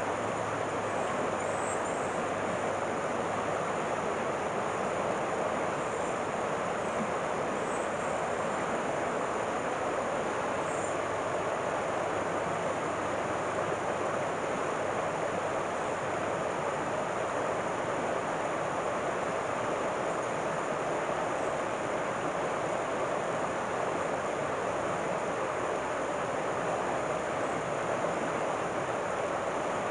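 River water rushing steadily over rocks, an even unbroken wash of sound.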